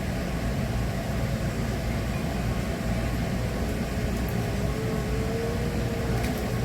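Steady low rumble and hiss inside a Hankyu train car during a depot train-wash run, with a faint whine that comes in about four seconds in.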